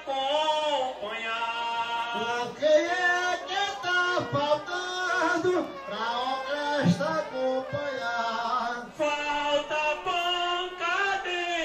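A man singing an improvised maracatu rural (sambada) verse into a microphone, in long drawn-out melodic lines with brief breaks between phrases.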